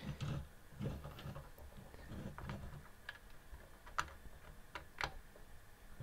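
Gloved hands handling SATA data cables and pushing their connectors into a desktop PC's motherboard ports: faint rustling with a few scattered small clicks, the sharpest about four and five seconds in.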